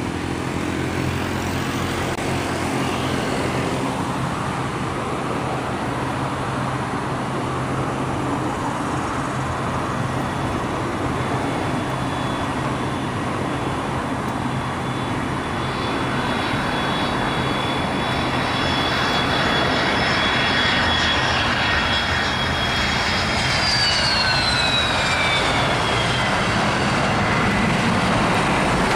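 Boeing 767-200 freighter's twin turbofan engines on final approach and landing: a steady jet rush with a thin high whine, growing a little louder. About three-quarters of the way through, the whine falls in pitch as the aircraft passes and reaches the runway.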